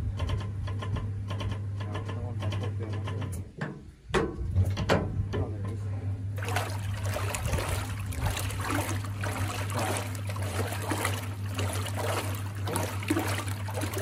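1950s THOR washing machine/dishwasher combo starting a wash: a steady electric hum, broken by a brief dip and a few knocks about four seconds in. From about six seconds in the agitator churns the tub of hot water, with a continuous choppy sloshing.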